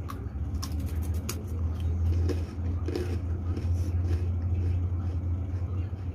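Krupuk (crisp Indonesian crackers) being bitten and chewed, giving a scattering of sharp, irregular crunches over a steady low hum.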